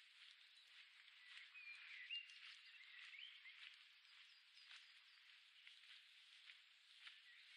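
Faint birdsong, short rising and falling chirps mostly in the first half, over a steady hiss of running water, with scattered soft ticks of footsteps on the path.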